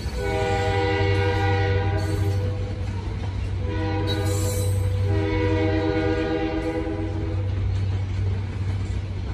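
Locomotive air horn sounding two long blasts back to back, each a steady chord, stopping about two seconds before the end. Underneath is the continuous low rumble of a loaded rock train's hopper cars rolling by.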